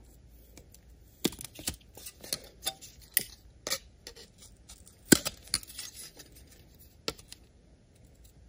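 Diagonal cutters snipping the ends off the plastic Christmas tree clips that hold a small fan to its metal platform: a series of separate small clicks and snaps, the sharpest about five seconds in.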